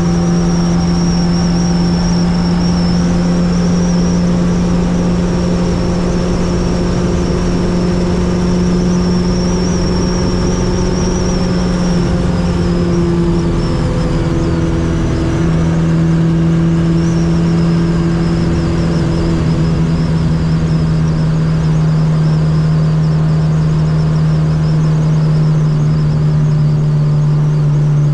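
Fiat 600 with a swapped-in 1.6-litre four-cylinder engine running at a steady motorway cruise, with a high whine alongside the engine note. The note dips briefly about halfway through, then settles steady again at a slightly lower pitch.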